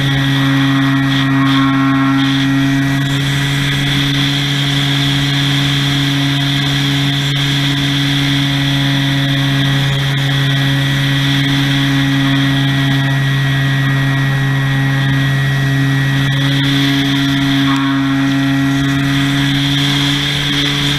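Model airplane's motor and propeller heard from the onboard camera, a loud, steady drone at near-constant throttle with a small change in pitch about two seconds in and again near the end.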